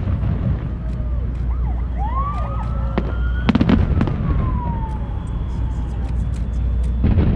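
Aerial fireworks bursting: a quick cluster of sharp bangs about three and a half seconds in and another near the end, over a steady low rumble. In between, a long whistle rises and then slowly falls in pitch.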